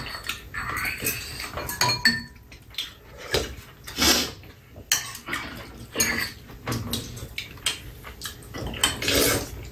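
Metal spoons and chopsticks clinking and scraping against bowls as two people eat: irregular clinks through the whole stretch, one ringing briefly about two seconds in.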